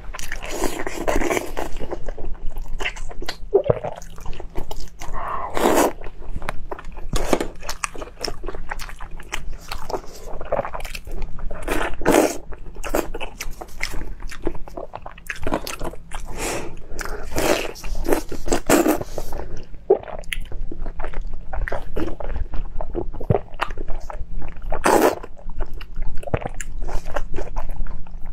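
Close-miked biting and chewing in irregular bursts: first braised pork belly, then crunching bites into a raw green vegetable stalk.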